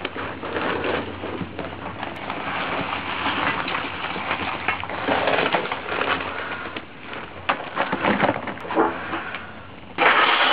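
Charcoal fire in a brick forge pit crackling and popping as a leaf blower forces air through it. A sudden louder rush of air and fire comes near the end.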